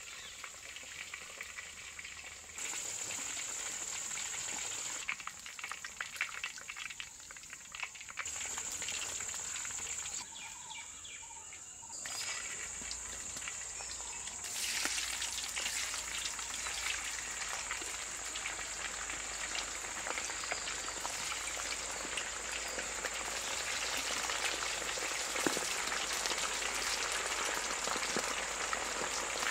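Chicken pieces deep-frying in hot oil in a large aluminium wok, a steady crackling sizzle that gets louder from about halfway through.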